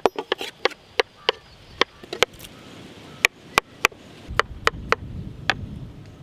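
Knife cutting dragon fruit on a wooden board: a quick, irregular run of sharp knocks as the blade strikes the board.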